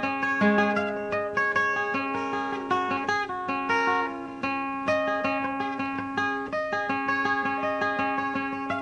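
Acoustic guitar picked in a quick, continuous run of notes over a sustained low note, with no singing.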